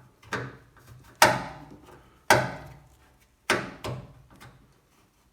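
Hard plastic knocks and clunks as the washing machine's water inlet valve solenoids are worked free of their mounting and pulled out. There are about five separate knocks, the loudest a little over a second in.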